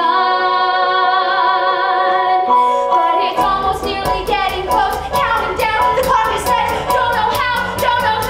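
A woman sings into a microphone, holding a long note at first. About three seconds in, a band joins with a steady beat and she carries on with a quicker melody.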